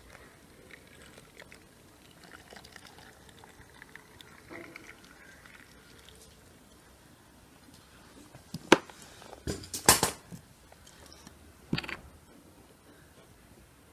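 Boiling water trickling faintly from a teapot spout into a glass jar of medlars. Then, about nine to twelve seconds in, a few sharp clicks and knocks as kitchenware is handled; these are the loudest sounds.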